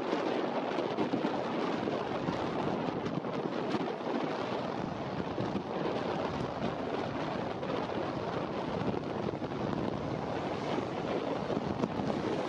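Airbus A320's IAE V2500 jet engines running at taxi power, a steady whoosh mixed with wind buffeting the microphone.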